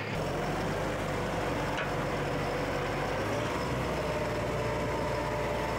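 TYM T1104 tractor's diesel engine running steadily, its pitch rising slightly about three seconds in.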